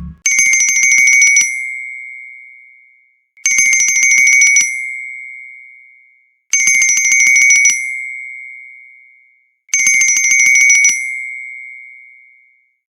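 A Blu Studio 5.5 C phone's built-in bell tone: a bell rung in a fast trill for about a second, then ringing out and fading. It plays four times, about every three seconds.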